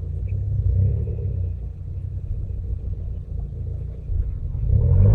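Low rumble of an off-road 4x4 vehicle's engine, swelling louder near the end.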